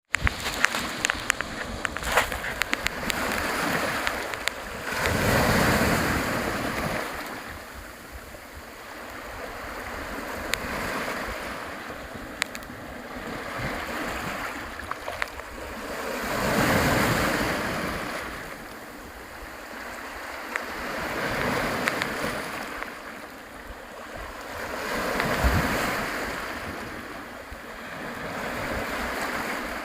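Waves washing in and drawing back, each surge swelling and fading every four to five seconds, with a few sharp ticks of splashing in the first few seconds.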